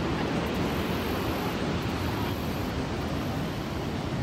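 Steady roar of Niagara's Horseshoe Falls, a deep, even rushing noise that does not change.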